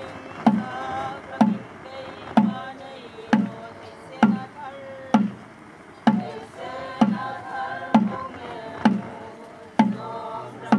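A drum beaten in a slow, even pulse, about one stroke a second, each stroke a sharp crack over a short low thud, while a group of voices sings a chant between the beats.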